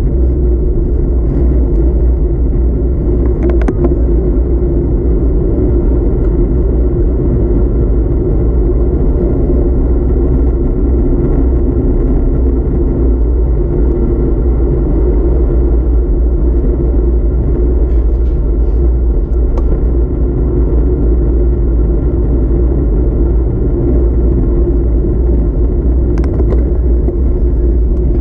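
Wind buffeting the microphone of a camera on a moving road bike: a steady, loud, low rumble, with a couple of faint clicks.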